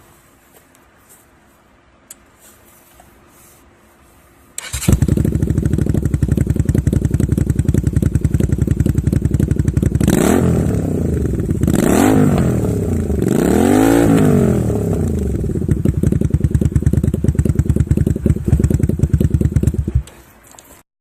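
Exhaust note of a Honda V-Twin Magna 250's V-twin engine. It comes in suddenly about five seconds in, idles, and is blipped three times around the middle, rising and falling in pitch each time. It stops abruptly near the end.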